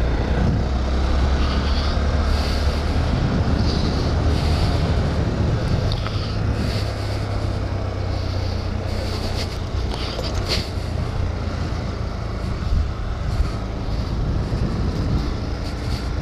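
Honda Grom's 125 cc single-cylinder engine running while riding at low speed, a little louder for the first few seconds and then steady, with wind noise on the helmet microphone.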